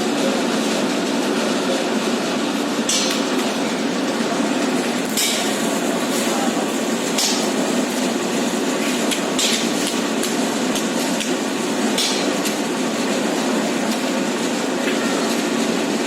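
Manual building-site work: a steady rumbling din with sharp knocks striking irregularly, about every two seconds.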